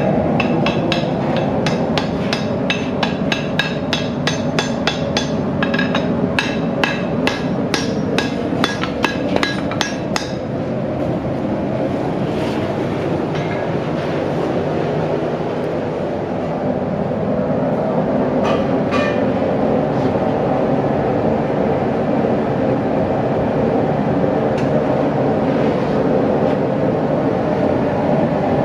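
Fast, even hammer blows on metal, about three or four a second, for roughly the first ten seconds over a steady running roar. After that the roar goes on with only a few scattered strikes.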